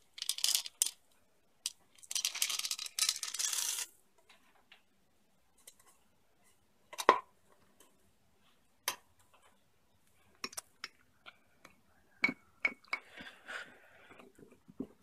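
Chocolate chips poured from a small container into a ceramic mug make a rattling rush lasting about two seconds. Then come a few separate clicks of a metal spoon against the mug, and a short bout of stirring near the end.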